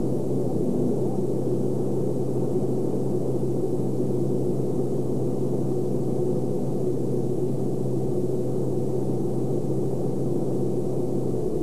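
Caterpillar 219 excavator's diesel engine running steadily: a constant low hum with several steady tones.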